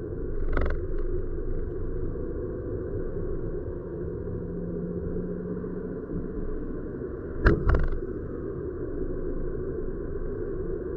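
Car driving in city traffic, heard from inside the cabin as a steady low road rumble. Two sharp knocks come in quick succession about seven and a half seconds in.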